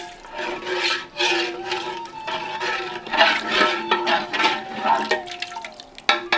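Water poured from a brass tumbler into a metal cooking pot of curry masala, splashing and gurgling in a series of pours. A long spoon then stirs through the watery mixture. This is the water, some of it the mutton's cooking water, being added before the broken wheat goes in.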